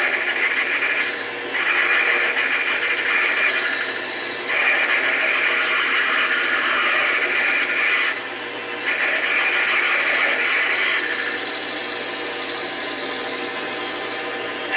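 Metal lathe running with a drill bit in the tailstock cutting into a metal bar: a steady rough cutting noise in stretches of a few seconds, with brief breaks about a second in and about eight seconds in, over the lathe's steady motor hum.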